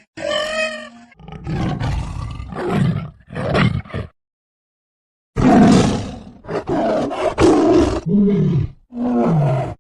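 A recording of a big cat's roars and growls, a series of rough calls with short breaks between them and a silent gap of about a second near the middle. The last calls fall in pitch.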